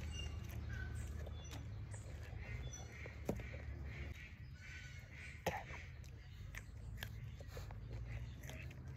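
Close-up chewing of raw vegetables: wet mouth clicks and crisp crunches, the two sharpest at about three and five and a half seconds in.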